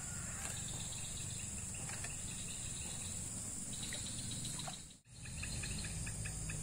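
Steady high-pitched insect chorus with rows of short high chirps over a low outdoor rumble; the sound drops out briefly about five seconds in.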